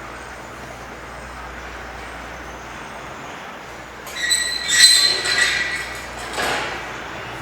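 Steady city-square background, then about four seconds in a loud, high-pitched metallic squeal with clatter lasting about two seconds, followed by a shorter, fainter noise.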